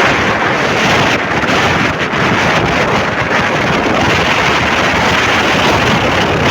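Wind buffeting the microphone: a steady, loud rushing noise.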